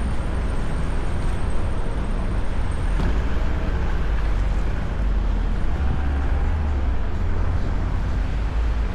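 Steady road traffic noise with a deep rumble. A faint high whine sounds over it during the first three seconds, then cuts off.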